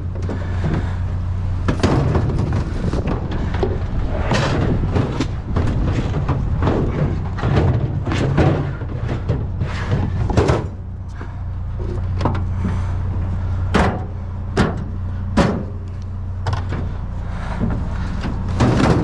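Repeated knocks, clunks and clicks of a scrapped microwave being handled while its power cord is clipped off, over a steady low vehicle engine hum.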